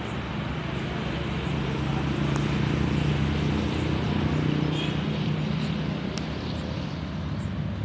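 Steady low rumble of distant road traffic, with an engine hum that swells a little in the middle, and a few faint high ticks.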